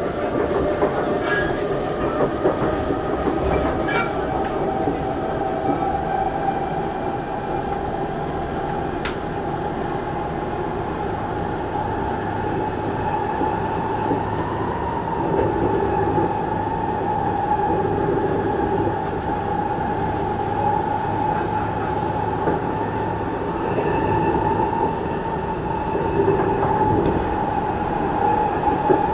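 Singapore MRT train running, heard from inside the passenger car: a steady rumble of wheels on the track under a sustained high whine that rises slightly about halfway through, with a few light clicks in the first few seconds.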